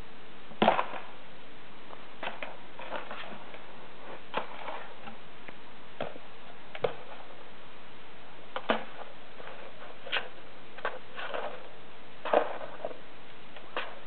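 Kitten pawing at an empty cardboard tissue box: irregular light taps and short scratches of paws and claws on the cardboard, the loudest about half a second in and about twelve seconds in.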